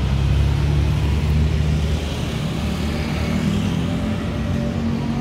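Street traffic: a nearby motor vehicle engine running with a steady low hum under general road noise.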